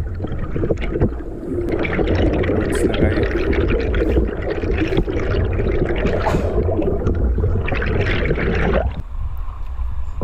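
Underwater sound through a camera housing during a dive: a steady low rumble with muffled churning and bubbling of water. Near the end the churning cuts off suddenly as the camera breaks the surface, leaving splashing water.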